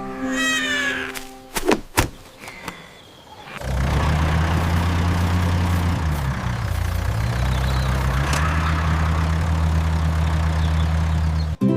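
Tractor engine sound effect running steadily for about eight seconds, low and even, with a brief dip in pitch midway. Before it there are two sharp clicks, and cartoon music plays briefly at the start and again at the very end.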